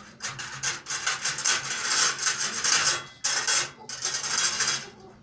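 Loud rubbing, rustling noise in three stretches: a long one of about three seconds, then two short ones.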